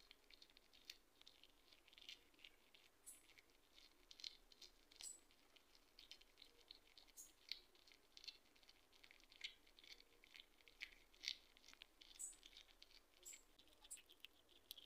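Hedgehog chewing a wart-biter bush cricket: faint, irregular crunching and smacking of its jaws, several small clicks a second.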